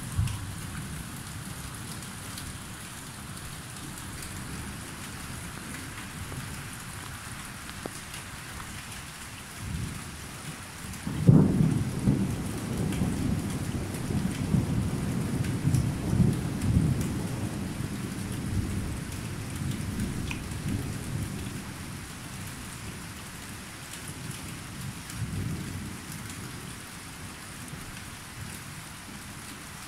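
Steady rain falling through a thunderstorm. About eleven seconds in, a sudden thunderclap breaks out and rolls on as low rumbling for several seconds. A fainter rumble of thunder comes later.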